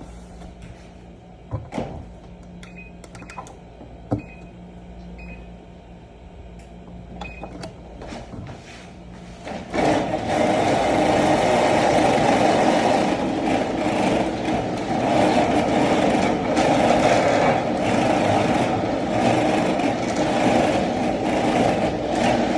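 A few knocks, then about ten seconds in a treadmill starts up suddenly and runs steadily with a toy car on its belt.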